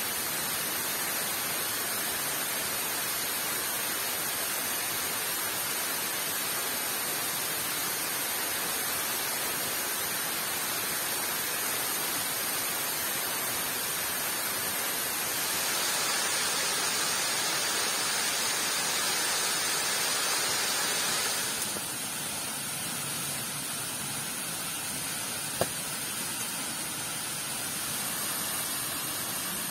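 Steady hiss of falling water, rain and waterfall spray. About halfway through it turns brighter and a little louder for some six seconds, then drops back abruptly, and a single sharp click comes near the end.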